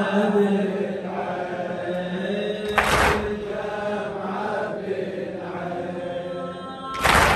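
Male voices chanting a slow Shia lament (latmiyya) together, with the crowd of mourners striking their chests with their hands in unison (latm) twice, about four seconds apart, each strike a short loud crash.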